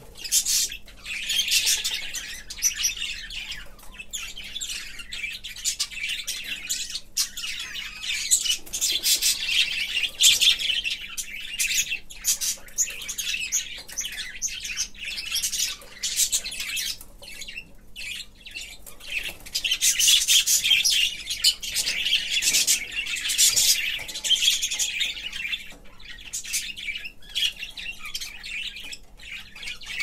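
A flock of budgerigars chirping and warbling together in a continuous chatter, louder about a third of the way in and again from about two-thirds through.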